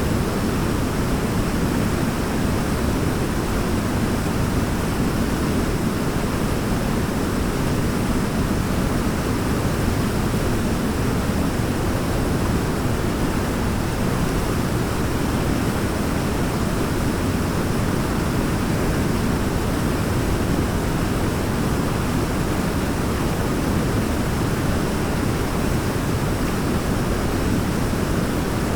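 Waterfall: water falling and splashing in a steady, unbroken rush, deep and full in the low end.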